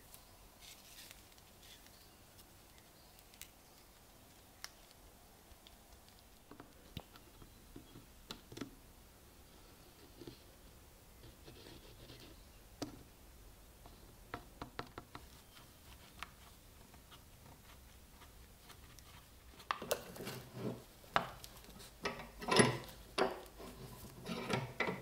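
Faint, scattered clicks and rubbing of small workshop parts being handled, then a run of louder knocks and clatter in the last few seconds as wooden handle pieces are set into a metal bench vise.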